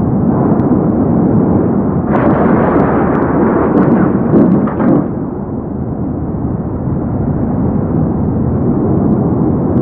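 Thunder from a nearby lightning strike: a sharp crack about two seconds in, with crackling for a few seconds, over a continuous loud low rumble.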